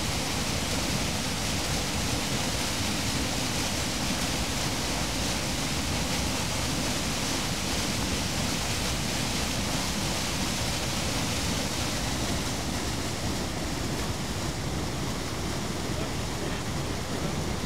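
Floodwater rushing in a steady torrent down the concrete drop walls of an overflowing drainage ditch. The rush eases slightly after about twelve seconds.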